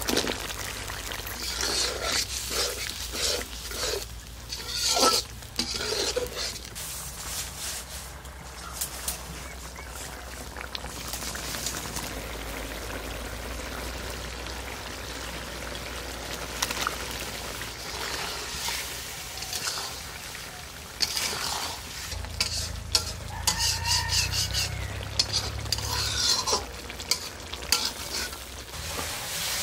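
A spatula stirring and scraping in a cooking pan as spice paste and raw tomato fry and sizzle, with irregular scraping strokes in the first few seconds and again near the end.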